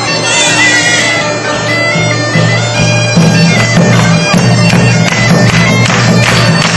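Bagpipe playing a melody over its steady drone. About three and a half seconds in, regular sharp percussive beats come in alongside it.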